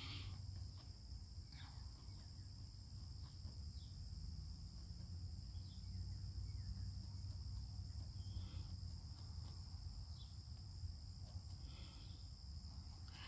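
Steady high-pitched chorus of insects, with a low rumble beneath.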